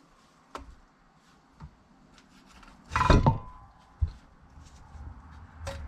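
Masking tape being peeled off an O2 sensor and its wire, with faint handling clicks and a louder tearing sound about three seconds in.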